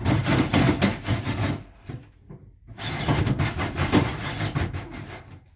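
Cordless drill spinning a hole saw against the bus's ceiling and metal roof to cut the stove pipe hole, in two long runs with a pause of about a second between them; the cut is nearly through but stubborn.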